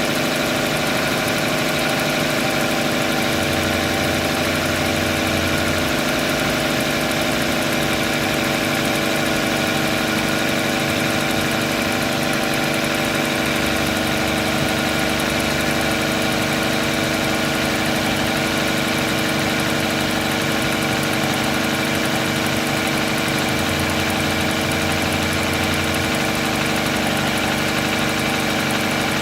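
Car petrol engine idling steadily on a cold start, still running on petrol before the switch to LPG.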